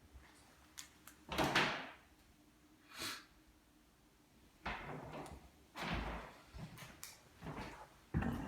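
Interior door being handled: several separate bumps and scrapes as it is opened and closed.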